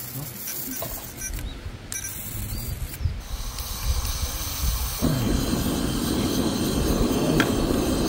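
Gas hissing from a Trangia stove's canister gas burner as the valve is opened. About five seconds in the burner catches and burns with a steady flame noise.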